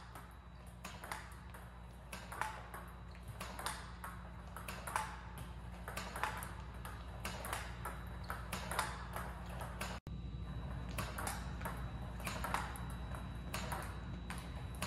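Table tennis rally against a ball-throwing robot: a fast, irregular string of sharp clicks as the plastic ball bounces on the table and is struck back with a rubber paddle, several times a second, over a steady low hum.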